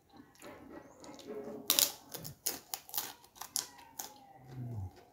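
Kerupuk cracker crunching as it is broken and eaten: a run of sharp, crisp cracks. A short low hum near the end.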